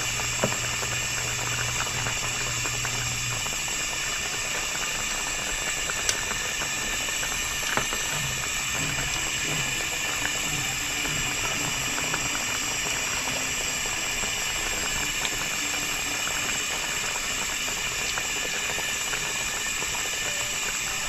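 A pot of green pigeon pea sauce simmering: a steady bubbling hiss, with three sharp clicks, the loudest about six seconds in.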